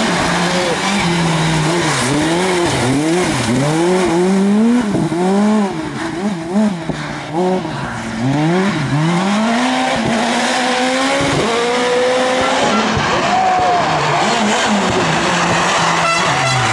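Rally car engine driven hard on a stage, its pitch climbing and dropping again and again in quick swoops as it revs through gear changes and lifts.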